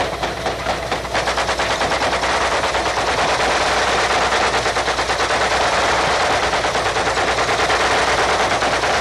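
Helicopter gunship's machine guns firing in long, rapid bursts, heard from aboard over the helicopter's engine noise; the shots grow denser and nearly continuous about a second in.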